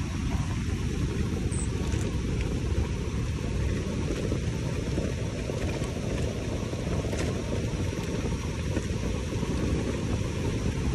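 Wind rushing over the microphone of a handlebar-mounted camera on a road bike descending at speed: a steady low rumble.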